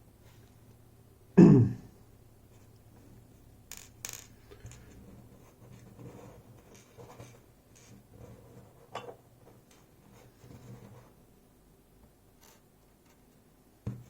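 Small clicks and taps of tiny lock parts and tools being handled on a work surface, with one louder low thump about a second and a half in and another short knock near the end.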